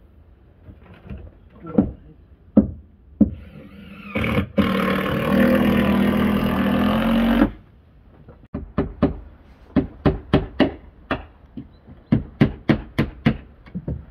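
Knocks on timber formwork, then a power tool runs loudly for about three seconds and cuts off abruptly, followed by a quick string of about fifteen hammer blows nailing boards.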